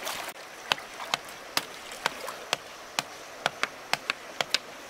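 A series of sharp, short knocks at an uneven pace, about two or three a second, over the steady sound of a stream.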